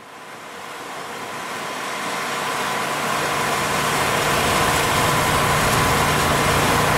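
Pressure washer's engine running steadily, with a faint steady whine over a low hum. It fades in over the first few seconds.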